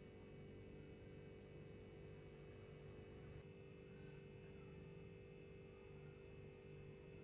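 Near silence: a faint, steady hum of background ambience.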